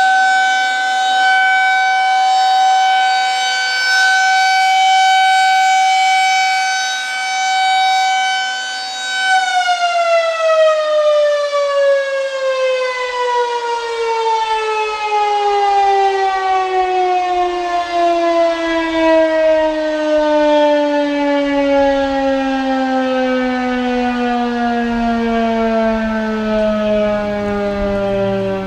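Federal Signal 2001-SRNB electromechanical warning siren sounding a steady tone on its monthly test. About nine seconds in it begins to wind down, its pitch falling slowly and steadily to the end.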